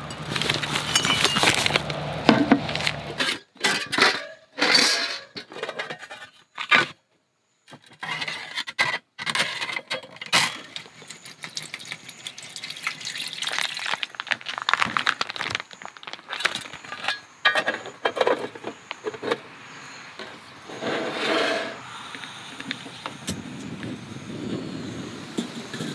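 Irregular clinks, knocks and scrapes of dishes and utensils being handled, in several short takes with a brief gap about a third of the way in.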